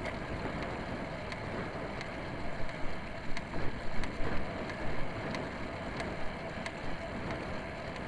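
Wind rushing over the microphone of a camera on a racing road bike, with road and tyre noise, as a steady rush with a few faint irregular ticks.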